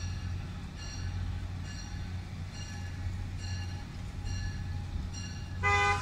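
MBTA commuter rail train rumbling low as it approaches, with a faint high ding repeating a little under once a second. Near the end the train's horn starts, a loud chord of several tones, sounded as a warning to track workers on the line.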